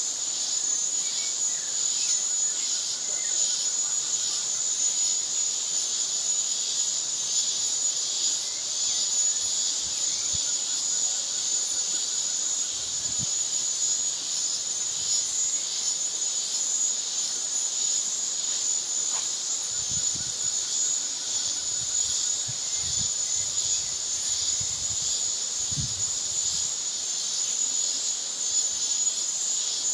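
Steady, high-pitched insect chorus with a fast pulsing texture.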